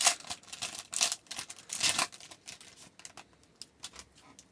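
A trading card pack's wrapper crinkling and tearing open, with three louder rustles in the first two seconds, followed by lighter clicks and ticks of the cards being handled.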